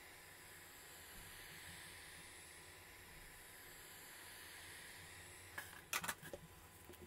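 Faint steady hiss, then a quick cluster of sharp clicks and knocks about six seconds in.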